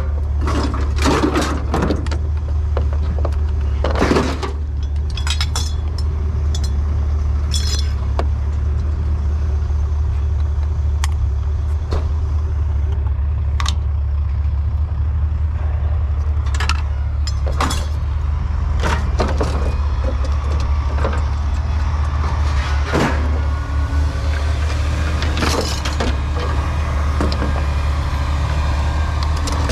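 A vehicle engine running with a steady low rumble, under scattered clanks, knocks and rattles of scrap being handled and thrown.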